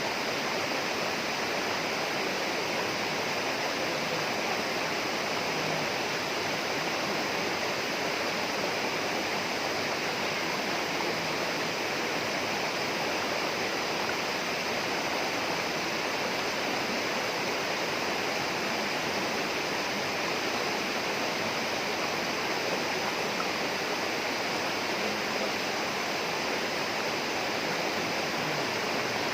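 Steady, unbroken rush of flowing water, a rainforest stream or small waterfall.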